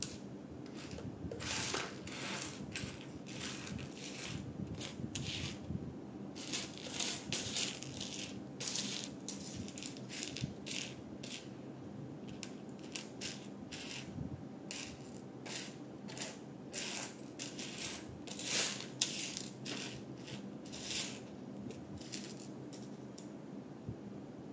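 Small hard LEGO pieces clicking and clattering as a hand sorts through loose bricks. The clicks come in irregular clusters, the loudest clatter about three-quarters of the way through.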